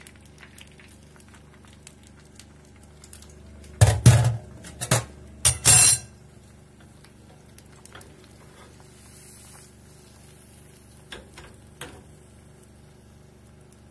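Ceramic bowl and metal spoon set down into a stainless-steel sink: a short run of loud clinks and knocks between about four and six seconds in, over a faint steady hum.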